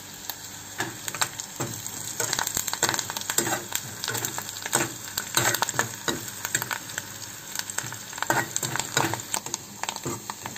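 Curry leaves, onions and green chillies sizzling in hot oil in a kadai while a plastic spatula stirs and scrapes the pan in quick repeated strokes, starting about a second in.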